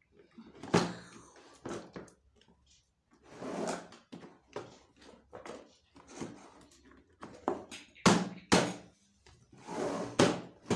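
Hard plastic parts of a toy kitchen being handled and fitted together: a series of knocks, clicks and scraping, with sharp knocks about a second in and twice close together near eight seconds in.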